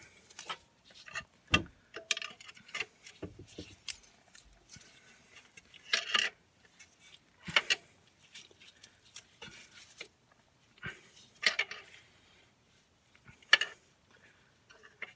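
Irregular metallic clinks, scrapes and knocks of hand tools against engine parts during drive-belt work, with a few louder knocks scattered through.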